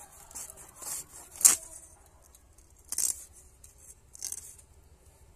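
A knife blade scraping the scales off a whole freshwater carp in short rasping strokes. The sharpest stroke comes about one and a half seconds in, with two more near three and four seconds.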